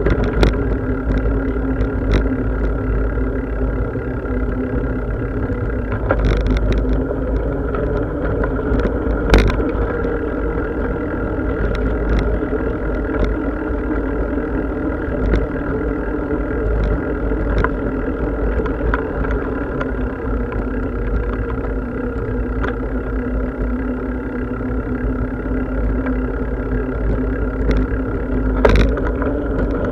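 Riding noise from a bicycle on the move: a steady rumble and hum, with scattered short clicks and knocks.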